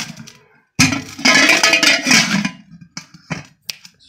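An aluminium pressure cooker lid scraping and ringing against the cooker body's rim as it is worked into place, followed by several short metallic clicks. The lid now goes in past the freshly reshaped rim.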